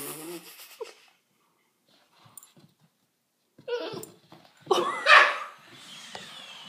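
Basset hound puppy barking in play, in short bursts: a burst at the start, a quiet pause, then louder barks about four to five seconds in.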